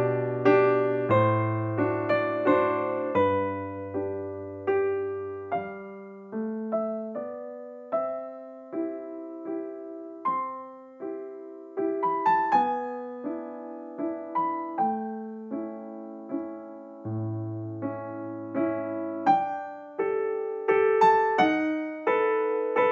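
Background piano music: a slow melody of single struck notes, each fading away, over low bass notes in the first few seconds and again later on.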